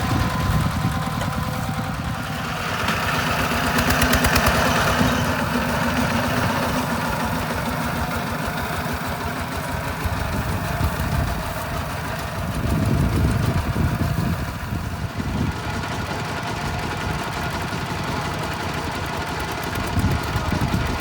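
Diesel tractor engine running with a fast, regular chugging beat. It swells louder a few seconds in and again about two-thirds of the way through.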